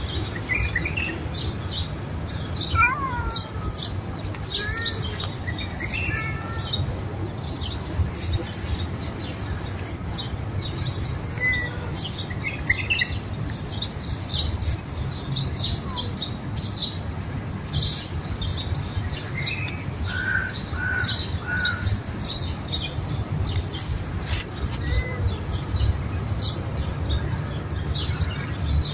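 Small birds chirping over and over: short, high chirps throughout, with a few longer calls, over a steady low outdoor rumble.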